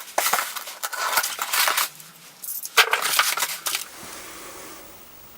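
Packaging being handled and torn open while unboxing, heard as rustling and crinkling in two spells, the second starting with a sharp crack. It goes quiet after about four seconds.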